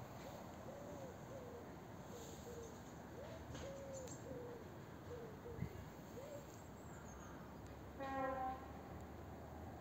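A pigeon cooing faintly in soft repeated phrases of short low notes. Near the end comes one brief, louder pitched call.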